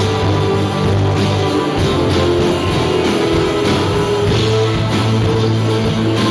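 Rock band playing an instrumental passage, guitars to the fore over a steady bass line.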